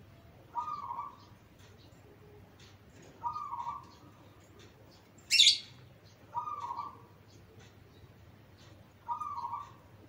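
Zebra dove (perkutut) cooing: four short phrases, about three seconds apart. About halfway through comes a brief, sharp high-pitched sound, louder than the cooing.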